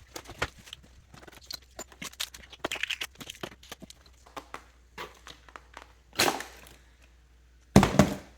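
Plastic fidget toys being handled and dropped into a box: a run of small clicks, knocks and crinkles, with two louder clatters about six and eight seconds in.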